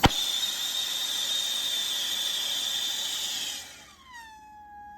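Gas torch lit with a sudden pop, then running with a loud hiss and a steady high-pitched whistle. About three and a half seconds in the hiss drops away, leaving a quieter whistling tone that dips and then rises in pitch.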